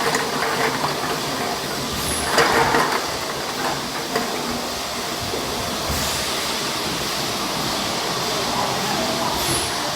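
Automatic syrup bottle filling line running: steady machine noise, with a louder burst of clatter about two and a half seconds in.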